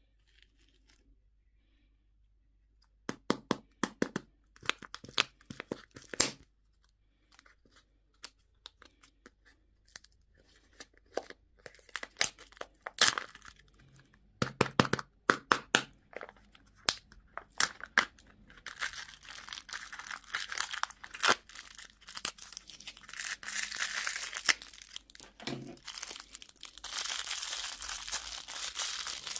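Plastic candy and toy packaging being opened by hand. Sharp clicks and snaps start about three seconds in, and from about nineteen seconds on there is steady crinkling and tearing.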